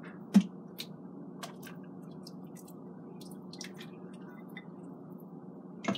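Thick white bean and potato soup being scooped from the Instant Pot's steel inner pot into a ceramic bowl: one sharp knock about half a second in, then soft wet squishes and small clicks over a steady low hum.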